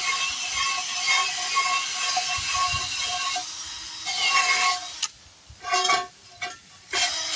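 Battery-powered power tool running steadily under load as it cleans a wheel rim's bead. It cuts out about five seconds in, then starts again in two short bursts.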